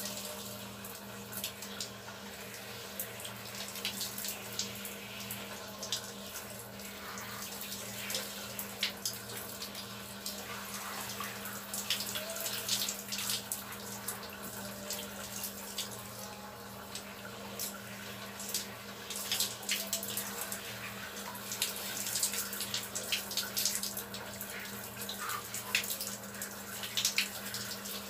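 Water spraying from a handheld shower hose and splashing over a person's body onto the floor, a steady hiss with frequent sharp splatters.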